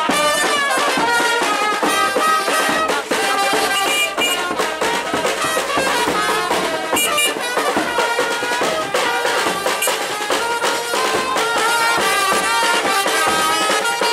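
A street band playing on the march: a big drum beats under a loud melody of held notes.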